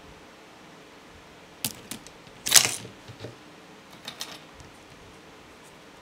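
Acrylic keyboard case pieces (clear acrylic frame strips and bottom plate of an Akko ACR61) clacking against each other as they are lifted apart and handled. A couple of light clicks come first, then a louder clatter about two and a half seconds in, then softer clicks about four seconds in.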